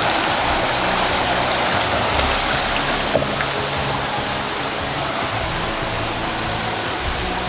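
Steady rushing of a shallow rocky stream, with sustained low music tones underneath.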